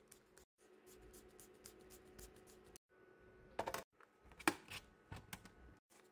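Faint clicks and taps from laptop reassembly: a precision screwdriver working the screws and the bottom cover being handled. The cover is pressed into place, with a couple of sharper snap clicks near the middle. The sound breaks off briefly several times.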